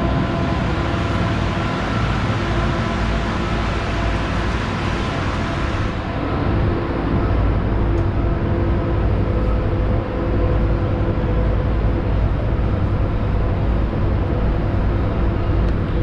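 Commuter train pulling away from a station, heard from inside the carriage: a steady heavy rumble of the engine and running gear, with a few steady tones over it in the first half, as the train gathers speed.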